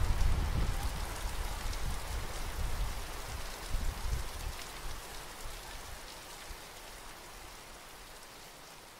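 Heavy rain falling onto flooded ground and standing water, a dense even hiss, with a low rumble in the first few seconds that dies away. The whole sound fades steadily down.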